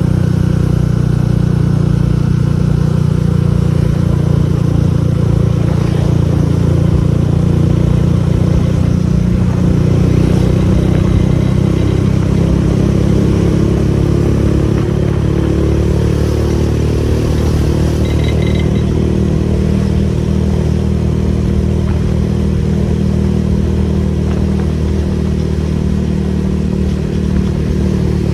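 Kawasaki ZX130 motorcycle's single-cylinder four-stroke engine running steadily at an even pitch.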